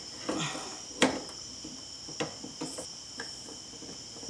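Crickets trilling steadily in the background, with clicks and a short scrape of the metal wiper linkage being worked by hand; one sharp click about a second in is the loudest sound.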